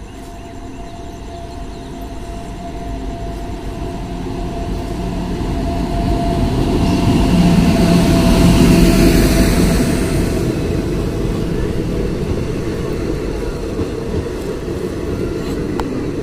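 Passenger train passing close by: a locomotive hauling a long rake of coaches. Its running noise builds as it approaches, is loudest as the locomotive goes by about eight to nine seconds in, then carries on as the coaches roll past.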